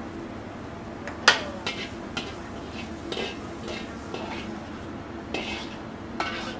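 Metal ladle clanking and scraping against a wok as fried noodles are pushed out onto a plate: one loud ringing clang about a second in, then a run of lighter clinks and scrapes. A steady low hum runs underneath.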